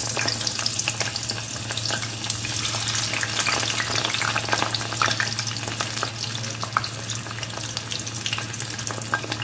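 Hot oil sizzling and crackling in a kadhai as boiled, peeled potatoes are dropped in a few at a time to shallow-fry, with many small pops throughout.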